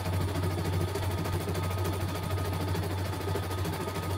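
CNY E900 computerized embroidery machine stitching a design: a fast, even needle rhythm over a steady low motor hum, sped up to double speed.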